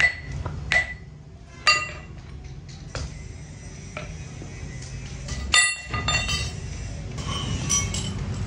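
Steel tools striking tapered roller bearing parts on a steel plate: several sharp, ringing metal clinks at irregular intervals, the loudest at the start, about 0.75 and 1.7 seconds in, and about halfway through.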